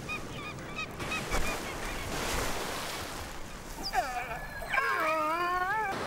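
Killer whale calls: short repeated chirps in the first second, then, from about four seconds in, a long wavering call that rises and falls in pitch. Water splashing hisses underneath.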